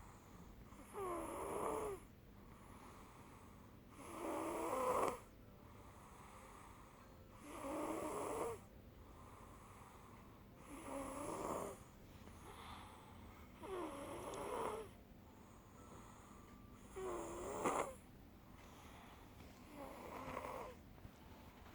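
Rhythmic snoring: seven snores in a row, one about every three seconds, each lasting about a second with a wavering pitch.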